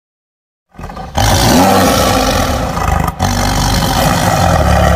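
Tiger roar sound effect: silence, then a loud rough roar beginning about a second in, breaking off briefly about three seconds in and roaring again.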